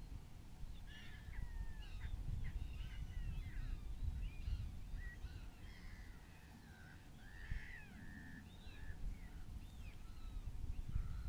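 Gulls calling: a run of short, harsh calls, many of them rising or falling in pitch, starting about a second in and overlapping one another, over a low steady rumble.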